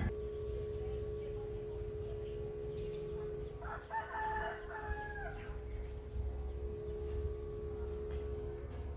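A rooster crowing once, about a second and a half long, starting about three and a half seconds in.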